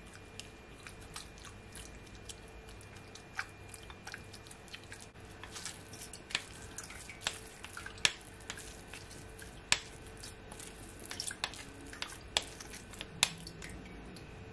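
Metal spoon pressing and scraping wet grated ginger pulp against a mesh strainer, giving faint, irregular small clicks and scrapes, with ginger syrup dripping through into the glass bowl below.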